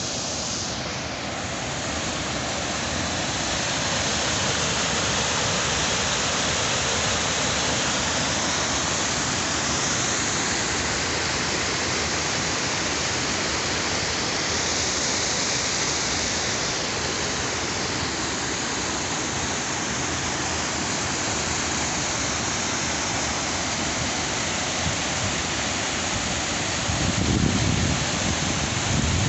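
Muddy hill-torrent water rushing steadily through a concrete weir outlet and over its spillway. A brief low rumble near the end.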